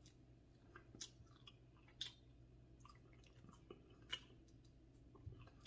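Faint close-up chewing: soft wet clicks and smacks of a mouth eating, at irregular intervals.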